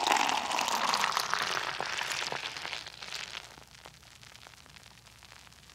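Beer fizzing in a glass: a hiss of foam and bubbles full of tiny crackles, dying away over about three seconds to a faint crackle.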